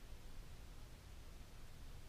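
Faint, steady fuzzy static hiss with a low rumble: the self-noise of a GoPro Hero 4 Black's internal microphone, with the camera's Wi-Fi off and no helicopter buzz. The owner assumes the internal mic gain is set too high.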